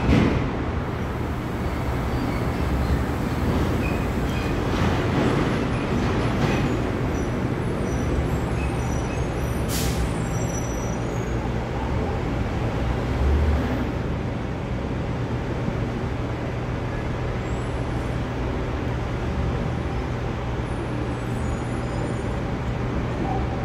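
Steady city road traffic noise with a constant low hum and a short sharp hiss about ten seconds in.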